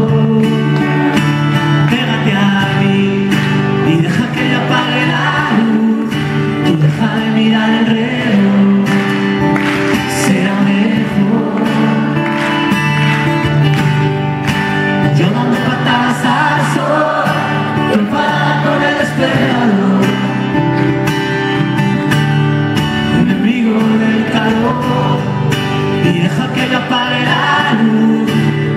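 Live band playing a song, with singing over the instruments.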